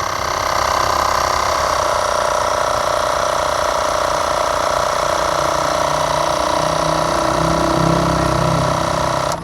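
Portable 12 V Steelmate tyre-inflator air compressor, about 100 W, running steadily with a buzzy mechanical rattle while it pumps up a soft car tyre toward 30 PSI. It stops suddenly near the end.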